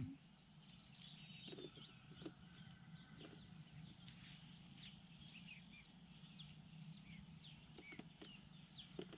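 Faint outdoor quiet with small birds chirping intermittently in many short chirps over a low steady hum, and a few soft clicks.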